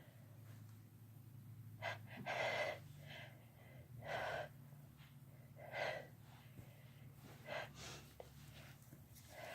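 A person's sharp, voiced gasping in-breaths, about six in a row with the loudest about two seconds in: the build-up to a sneeze. A faint steady low hum lies underneath.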